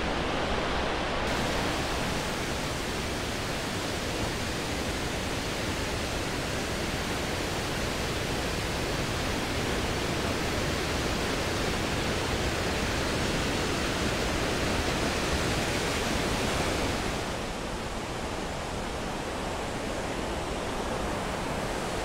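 Giessbach Falls: a steady, even rush of falling water, spread from low to high pitch. It turns a little duller and quieter about three-quarters of the way through.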